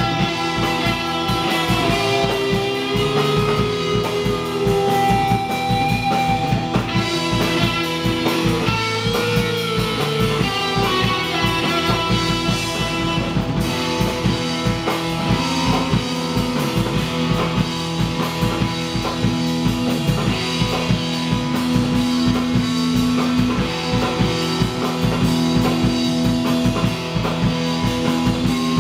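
Live rock band playing: electric guitars hold ringing notes over a steady drum-kit beat.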